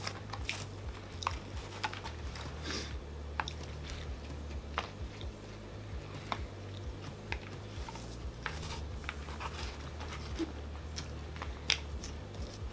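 A man biting into and chewing a McDonald's Quarter Pounder, with short wet smacks and clicks scattered throughout. A steady low hum runs underneath.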